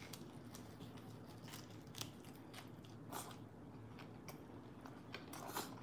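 Faint close-up biting and chewing of a salmon skin hand roll: crisp nori and crispy fried salmon skin crunching in scattered small crackles, with a couple of louder crunches about two and three seconds in.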